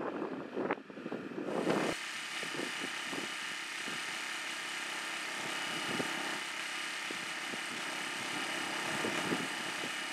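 Honda EU1000i inverter generator's small single-cylinder four-stroke engine running steadily in eco mode, a steady hum with several held tones. In the first couple of seconds, wind gusts buffet the microphone.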